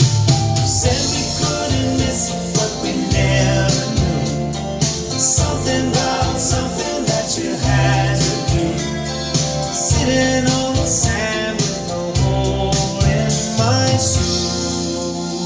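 Pop song with singing, guitar and drums, played back from a chromium cassette on a Nakamichi CR-7 cassette deck set to 120 µs equalization, without Dolby noise reduction.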